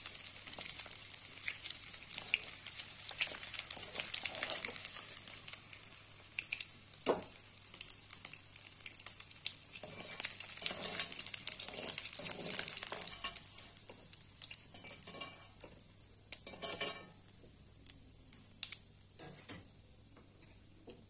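Small dried fish frying in hot oil in an aluminium wok: a steady sizzle, with a wire skimmer scraping and clicking against the pan as the fish are scooped out. The sizzle dies down about two thirds of the way through, leaving the oil bubbling quietly, and there is a short clatter near the end.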